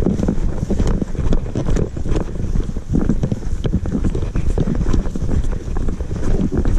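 A person's quick footsteps on a dry dirt trail, an irregular patter of many steps a second, over a steady low rumble of wind and movement on a body-worn camera.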